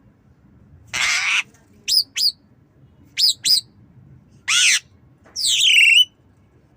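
Javan myna calling: a harsh rasp about a second in, then two pairs of short, sharp, falling whistled notes, and a longer slurred call that glides downward near the end.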